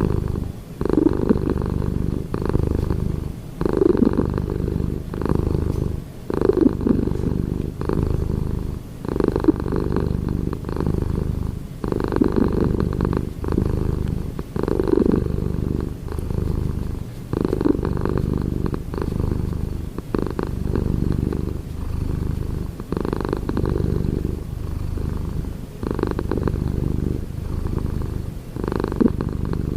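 Domestic cat purring steadily and loudly, the purr pulsing in a regular rhythm about every second and a half as it breathes in and out.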